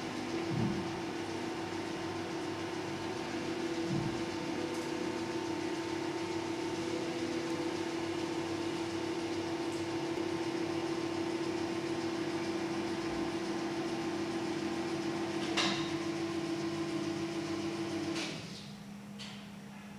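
Tehag 6000 kg welding positioner's power tilt drive running: a steady electric motor and gear hum as the table tilts, with a few light knocks and a sharp click, the hum cutting off a couple of seconds before the end.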